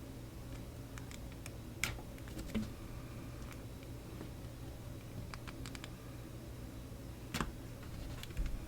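Handling noise at a workbench: a few faint, scattered light clicks and taps over a low steady hum.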